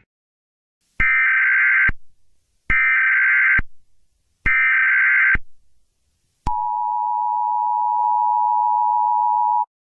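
Emergency Alert System tones: three short screeching bursts of SAME header data, each about a second long, then the two-tone EAS attention signal held steady for about three seconds before cutting off suddenly.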